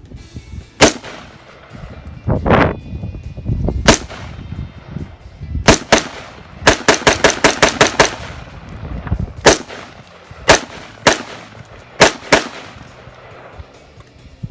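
Ruger AR-556 5.56 mm semi-automatic rifle fired in rapid succession: about twenty shots in all, with a quick string of about eight shots in the middle and spaced single shots before and after.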